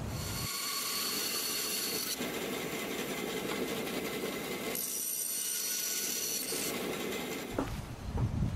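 Small bandsaw running and cutting a notch in a wooden board, its high whine changing character every couple of seconds, with louder handling bumps of the wood near the end.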